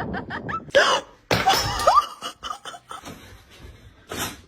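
A person laughing in quick repeated bursts, then a few loud sudden sounds about a second in.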